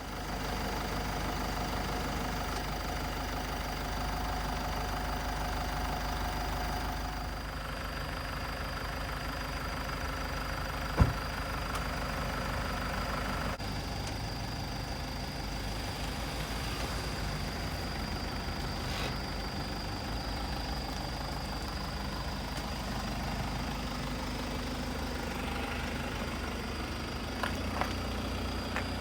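Mitsubishi Delica D:5's diesel engine running steadily with a low rumble, with one sharp knock about eleven seconds in and a couple of light clicks near the end.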